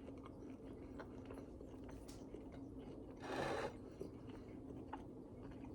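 Quiet chewing of food, with faint mouth clicks and one short louder rush of noise about three seconds in.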